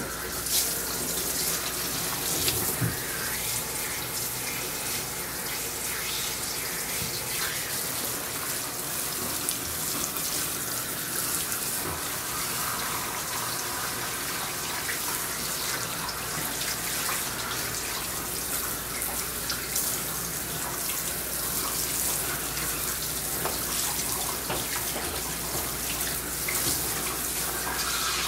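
Water spraying steadily from a hand-held hose nozzle onto a dog's coat and splashing into a bathtub, as the dog is wetted down for a bath.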